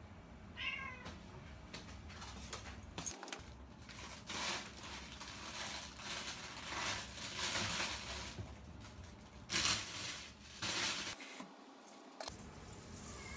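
A short cat meow about half a second in, then plastic bags rustling and crinkling while a refrigerator's pull-out drawer is slid open and pushed shut, with a sharp knock near the drawer's closing.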